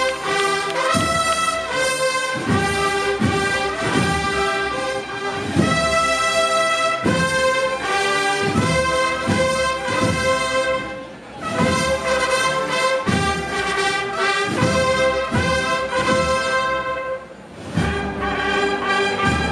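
Holy Week procession band playing a march: brass carrying the melody over a steady drum beat, with two short breaks between phrases.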